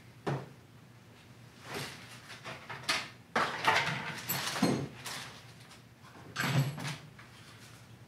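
Drawers of a metal rolling tool chest sliding open and shut and metal tools rattling inside them as someone rummages through them, in several separate bursts with quiet gaps between.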